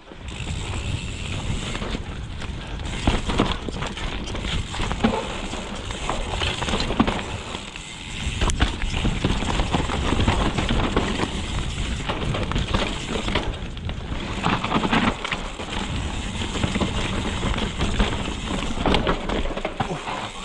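A mountain bike riding a dirt trail, heard through an action camera: wind rushing over the microphone, and tyres rumbling over the ground. Scattered knocks and rattles come from the bumps. The noise comes in suddenly at the start and stays loud, with a brief lull about eight seconds in.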